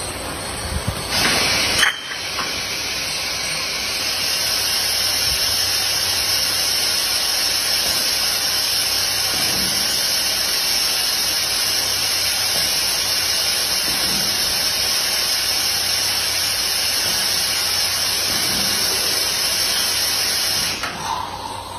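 Multi-head bottle filling machine filling a row of glass bottles: after a short louder burst at the start, a steady high hiss of liquid and air rushing through the filling nozzles, which cuts off suddenly near the end as the fill finishes.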